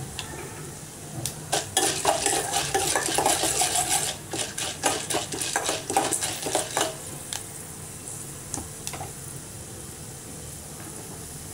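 A spoon stirring and scraping in a stainless steel pot of dal and spices frying in hot oil for a tempering, with a steady sizzle. The stirring starts about a second in and stops around seven seconds, leaving the sizzle and a few clicks.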